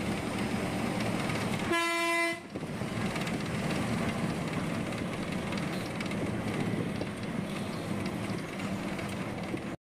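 Cabin noise of a moving KSRTC Sarige bus, a steady engine and road rumble, with a single horn blast lasting under a second about two seconds in.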